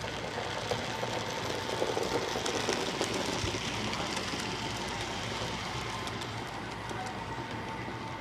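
HO-scale model passenger train, a steam locomotive hauling Milwaukee Road coaches, running past at speed with a steady rolling rumble and fine clicking of its wheels on the track, loudest about two to three seconds in as it passes closest.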